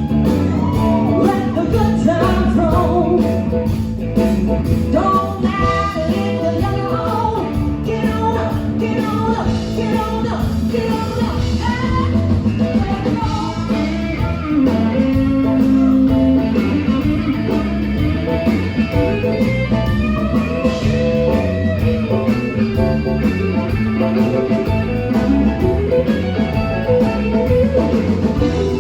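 Live band playing an instrumental break in a jump-blues song, with a guitar playing lead lines over bass and drums.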